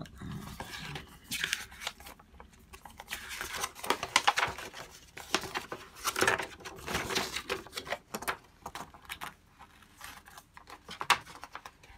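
Plastic wrapping and a folded paper playmat rustling and crinkling in irregular bursts as they are handled, pulled free and unfolded, with a few sharp clicks.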